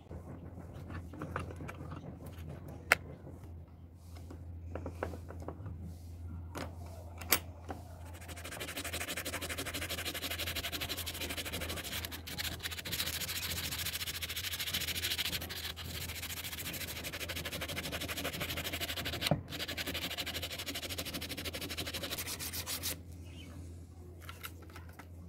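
Metal parts of a wire cutter clicking and tapping as they are handled in a vise, with two sharp ticks. Then, about a third of the way in, a steady rough abrasive rubbing on metal starts and cuts off abruptly near the end.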